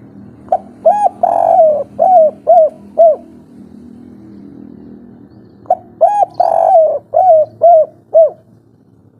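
Spotted dove (tekukur) cooing its three-beat 'kuk 3' song, loud and close: two phrases about five seconds apart, each a quick run of short coos with one longer drawn-out note near its start.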